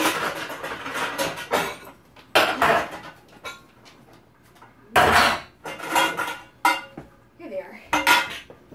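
Metal pots, pans and baking tins clattering and clanking while being rummaged through and pulled out of a kitchen cabinet, with several loud clanks spread through it.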